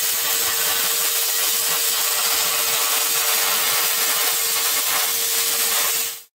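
Handheld plasma cutter cutting through steel plate: a loud, steady hiss with a constant tone under it, cutting off abruptly near the end.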